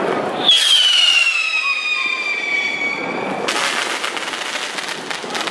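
Whistling firework: a shrill whistle with a slowly falling pitch for about three seconds, then breaking into a dense crackle.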